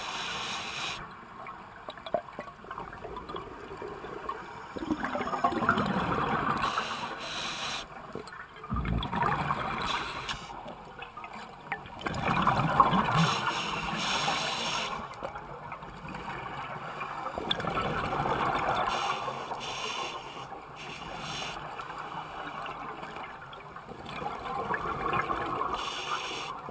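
Scuba regulator breathing underwater: a hiss on each breath in, then a gush of exhaled bubbles, repeating about every five seconds.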